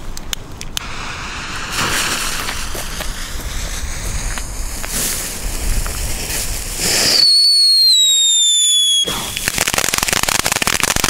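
Small youth-category firework fountain burning: a rushing hiss of sparks, then a really loud whistle about seven seconds in that slides slowly down in pitch for about two seconds, followed by dense crackling.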